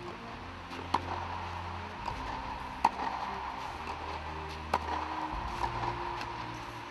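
Tennis ball struck by racquets in a rally, three sharp hits about two seconds apart, with fainter ball sounds between them.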